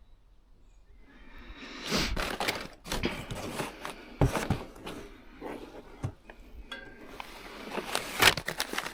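Packaging rustling as parts are dug out of a box and handled, with irregular knocks and clinks of parts being set down, starting about a second in.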